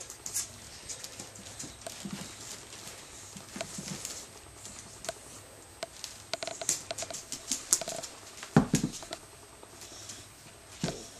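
Jack Russell terrier pawing and scratching at the cushions of a wicker dog basket, a run of irregular scrapes, rustles and clicks as it digs for a ball hidden underneath. A louder short sound comes about eight and a half seconds in.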